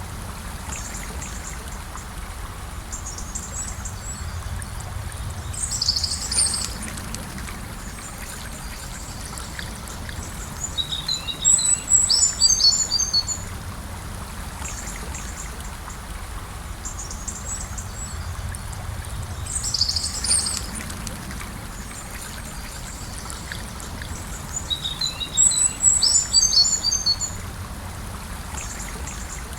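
Gentle river flowing with a steady low rush of water. A small songbird sings high, quick twittering phrases over it in short bouts every six to eight seconds.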